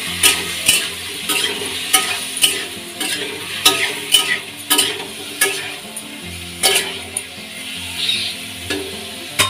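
Long metal spatula scraping and knocking against a metal kadhai as diced potatoes are stirred while they fry, over a steady sizzle. The clanks come about one and a half times a second.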